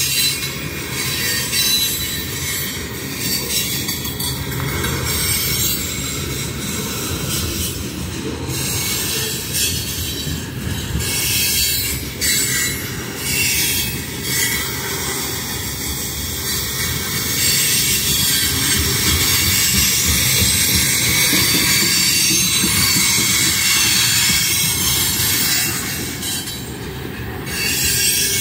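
Freight train of railroad tank cars rolling past at close range: steel wheels running on the rail with a steady rumble and a strong high-pitched hiss, growing louder for a stretch about two-thirds of the way through.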